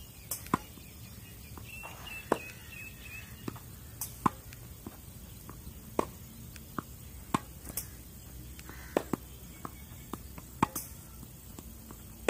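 Tennis balls being struck with rackets and bouncing on a clay court in a feeding drill: a dozen or more sharp pops at an uneven pace, some loud and close, others fainter from the far end of the court.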